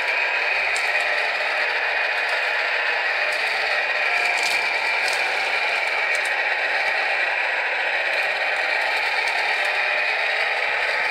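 Radio-controlled Wedico Caterpillar 966G model wheel loader's electric motors and gearing running with a steady high whine and mechanical rattle as it digs its bucket into a pile of sand and lifts the load.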